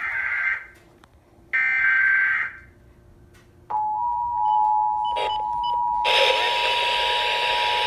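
Emergency Alert System SAME header data bursts: a screechy digital burst trails off at the start and another follows about a second and a half in. After a second's pause the two-tone EAS attention signal starts and holds steady, marking the start of another Required Monthly Test. About six seconds in, a loud hiss joins the tone.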